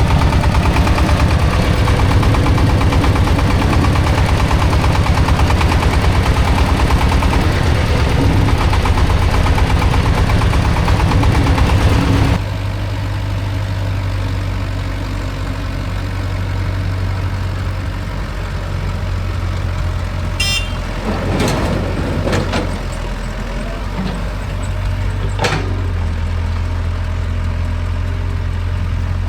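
Diesel engines of earth-moving machinery running, loud and rapid until about twelve seconds in, where the sound drops suddenly to a quieter, steady engine hum. A few short sharp knocks and a brief higher-pitched tone come near the end.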